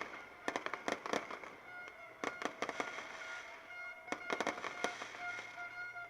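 Fireworks bursting overhead: clusters of rapid cracks and pops, thickest about half a second in, again past two seconds and around four seconds in. A steady held musical tone sounds under them from about two seconds in.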